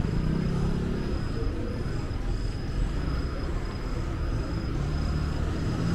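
City street traffic: a motor vehicle's engine running close by, a steady low rumble.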